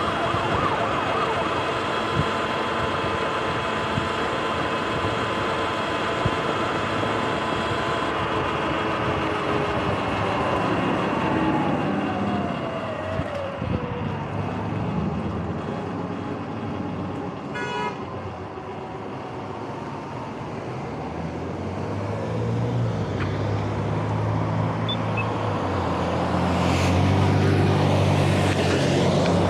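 Sur-Ron electric dirt bike's motor whining steadily at speed, the whine falling in pitch as the bike slows about halfway through. Near the end a semi truck's diesel engine rumbles loudly close by at an intersection.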